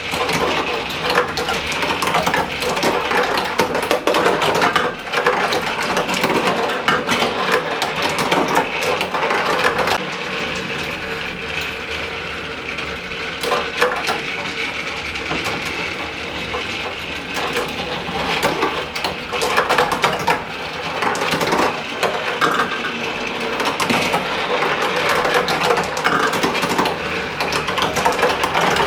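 Marbles rolling and clattering down a toy marble run: a continuous rattle of many quick clicks as they knock against the track and one another.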